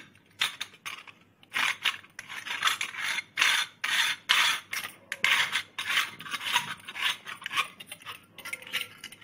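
Metal sev press being put together and screwed tight, its perforated disc and threaded cap making a quick series of metallic scrapes and clinks.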